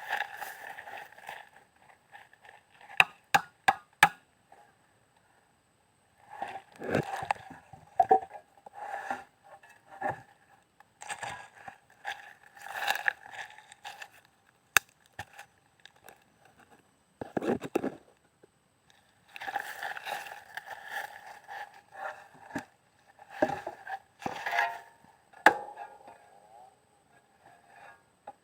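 Saw cutting wood in irregular runs of strokes with pauses between them, and a few sharp knocks about three to four seconds in.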